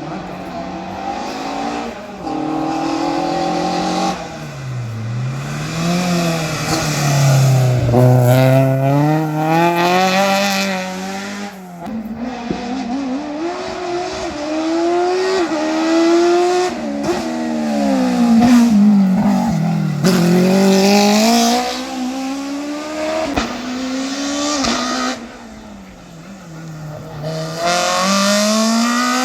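Racing car engines revving hard through a slalom course, several cars in turn: the pitch climbs under acceleration and drops sharply on lifts and downshifts, over and over, with some tyre squeal.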